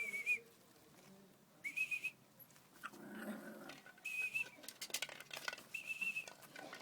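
A dog whining in short, high-pitched cries, four times, with faint scuffling between.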